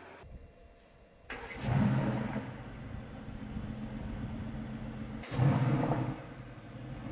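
Mercedes-AMG GT's 4.0-litre twin-turbo V8 starting up: it catches about a second in with a loud flare of revs, then settles to a steady idle around 1,000 rpm. About five seconds in the revs surge briefly again before dropping back to idle.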